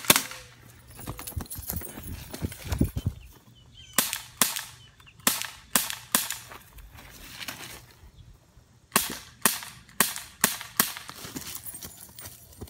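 BB air pistol fired in rapid strings of sharp cracks: about five shots starting around four seconds in, then a pause, then about five more starting around nine seconds in. There are low rumbling thumps in the first few seconds.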